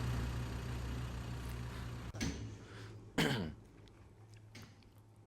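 Heavy vehicle engine running with a deep steady hum that breaks off about two seconds in. About a second later comes a short loud burst falling in pitch, then a few faint clicks.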